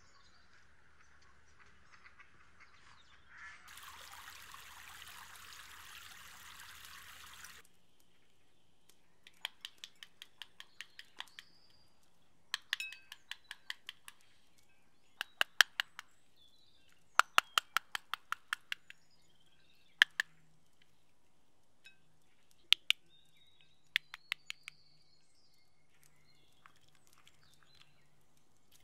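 Running stream water for about four seconds, ending abruptly. Then clusters of sharp clicks as a pomegranate is broken apart by hand and its seeds drop into a ceramic bowl, with faint bird chirps in between.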